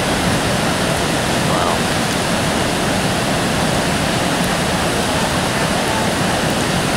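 Floodwater of the Ottauquechee River in spate, rushing and churning under and around a wooden covered bridge: a steady, loud rush of torrent water.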